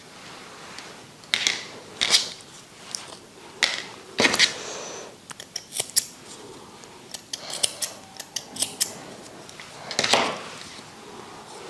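Handling noise from hand-sewing small crocheted yarn pieces together: a string of small clicks and taps with a few louder short rustles, close to a clip-on microphone.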